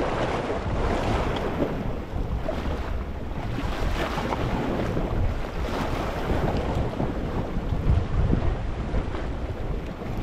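Small sea waves washing over a rocky shore: a continuous rushing, bubbling wash of water, with a low rumble of wind on the microphone.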